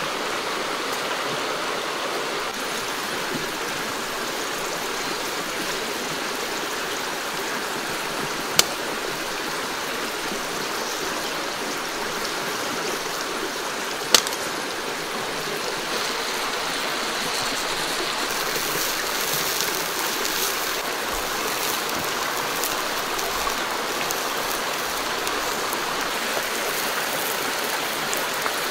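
Steady sound of flowing stream water, with two sharp clicks about 8 and 14 seconds in. From about the middle on, a crackly hiss joins it: octopus sizzling on a hot cooking stone.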